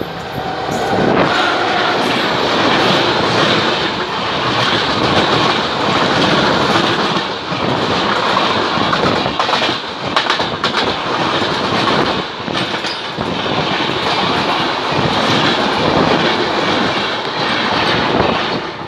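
Two trains passing each other at speed on adjacent tracks: a steady, loud roar of wheels and rushing air with clattering wheels on rail, heard from the open door of a moving passenger train. It swells about a second in as the oncoming locomotive draws level and its coaches sweep past close by.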